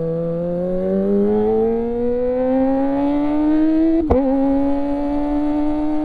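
Kawasaki ZX25R inline-four engine through an Akrapovic exhaust, accelerating with a steadily rising pitch for about four seconds. It then upshifts with a brief click and a small drop in pitch, and keeps pulling at an even pitch.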